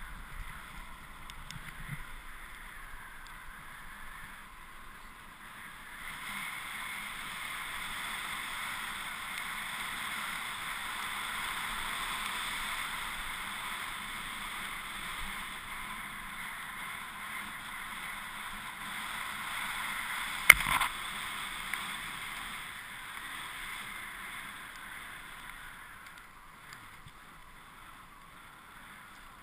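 Snowboard sliding down a groomed run: a steady scraping hiss of the board on snow that builds about six seconds in and eases off near the end, with one sharp knock about two-thirds of the way through.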